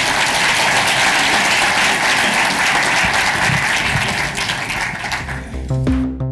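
Audience applauding, a dense steady clapping. Electronic synthesizer music fades in near the end.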